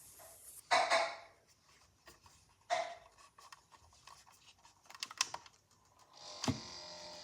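Desktop PC cooling fan grinding in irregular scraping bursts, then a single knock and a steady whir with faint whining tones setting in near the end. The owner takes it for a faulty fan, since the CPU area heats up too quickly.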